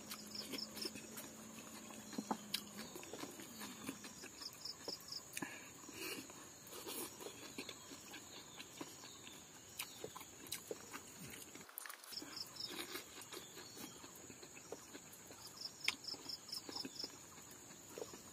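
Faint eating sounds, small clicks and smacks of chewing silkworm pupae and rice taken by hand, over a steady high-pitched insect drone. A short pulsed high trill from an insect or bird repeats about four times.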